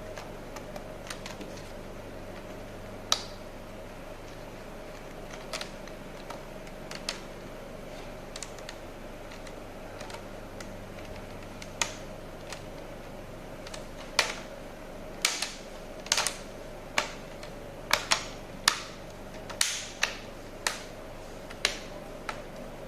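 Irregular sharp clicks and taps from hands and tools working on a laptop's plastic case and hinge, a few at first, then coming thick and fast in the second half, over a steady faint hum.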